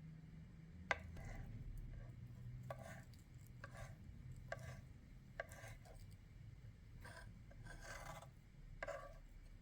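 Faint kitchen food-preparation sounds: a sharp click about a second in, then short scraping strokes with a utensil on food, about one a second.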